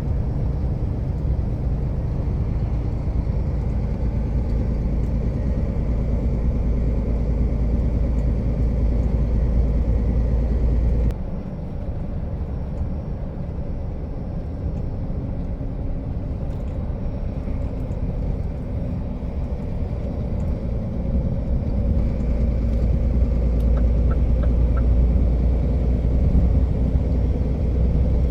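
Truck engine and road noise while driving, a steady low rumble. About eleven seconds in the sound changes abruptly and drops a little, then slowly grows louder toward the end.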